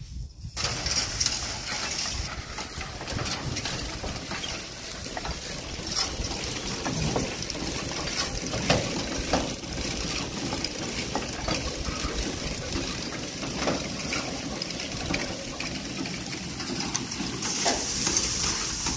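Hay loader being pulled across a field, its rake and slatted elevator rattling and rustling as they lift loose hay, with scattered knocks.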